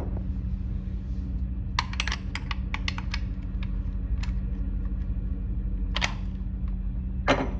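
Steady low hum with scattered sharp clicks and light knocks: a quick cluster about two to three seconds in, and single clicks about six seconds in and just before the end.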